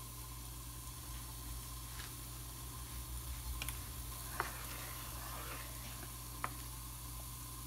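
Mushrooms frying in olive oil in a lidded pan on medium-high heat, a steady faint sizzle, with a few light clicks, the clearest about four and a half and six and a half seconds in.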